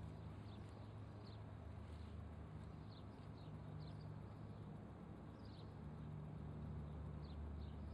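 Faint steady low machinery hum from across the harbour, with short high chirps of small birds now and then.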